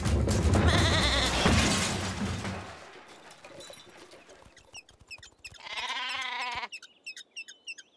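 A green plastic wheelie bin toppling over with a loud clatter of spilling rubbish for the first few seconds, then a few light ticks and a single wavering sheep bleat of about a second near the end.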